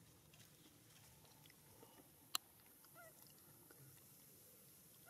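Near silence with a faint outdoor hiss. There is one sharp click a little over two seconds in, and a faint, short squeaky call about three seconds in.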